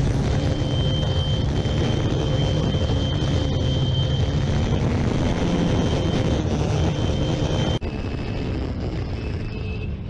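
Motorbike running through street traffic, heard from on board with wind noise on the microphone, under background music. There is a sudden break in the sound nearly eight seconds in.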